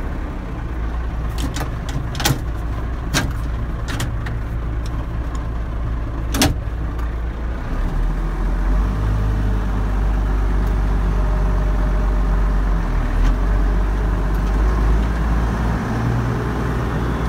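Allis-Chalmers 7080 tractor's six-cylinder diesel engine running steadily as the tractor drives, heard from inside the cab. Several sharp clicks and knocks come in the first seven seconds, and the engine grows louder from about eight seconds in.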